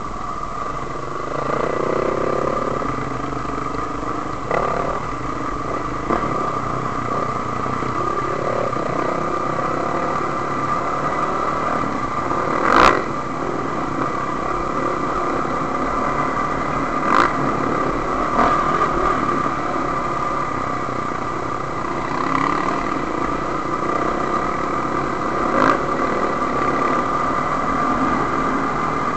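Enduro dirt bike's engine running steadily under way along a rough trail, heard from on board the bike. A few sharp knocks cut through it, the loudest about halfway through.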